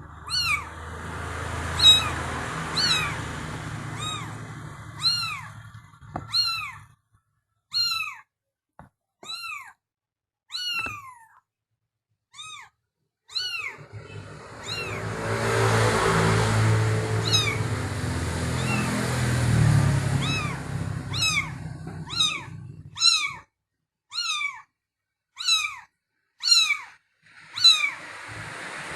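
Kitten mewing repeatedly: short, high calls that rise and fall, about one a second. A low rumbling noise runs underneath for the first several seconds and again through the middle stretch.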